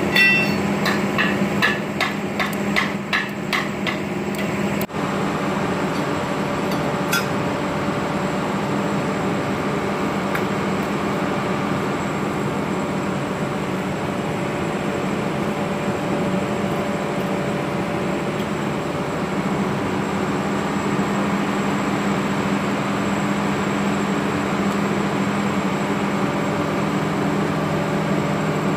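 About a dozen sharp metallic clicks and taps, roughly three a second over the first four seconds, as snap-ring pliers work the circlip on a JCB 3CX backhoe loader's brake friction-disc pack. A steady machine hum carries on underneath.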